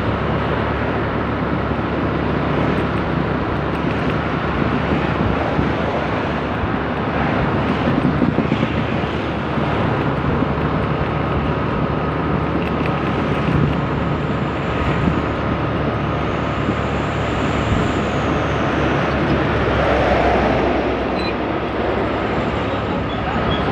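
Steady rush of wind and road noise while riding a motorbike at road speed, with the bike's engine running underneath.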